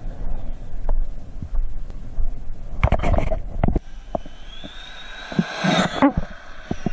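Arrma Infraction V2 RC car's brushless electric motor whining on a high-speed pass, the whine rising in pitch in the second half. Wind buffets the microphone throughout, with a loud rushing noise about three seconds in and another burst near the end.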